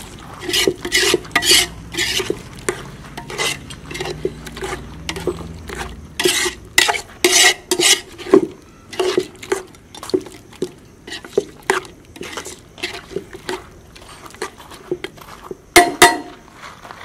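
Metal spoon stirring chicken pieces in thick gravy in a metal pot, repeatedly scraping and clinking against the pot's sides, with a louder clank near the end.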